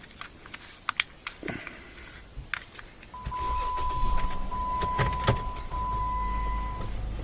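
A few clicks of handling, then, about three seconds in, the electric actuator motor of a 2012 Jeep Wrangler Rubicon's front sway bar disconnect is powered up on test. It gives a steady hum with a steady high tone over it that breaks off twice and stops near the end.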